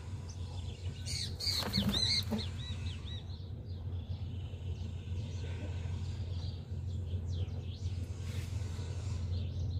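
Birds calling: a burst of high chirps about one to two and a half seconds in, ending in a quick run of short arched notes, then fainter calls near the end, over a steady low rumble.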